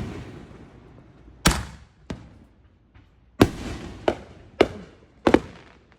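Consumer fireworks going off: a string of sharp, loud bangs, about five big ones with a couple of fainter pops between, each trailing off briefly.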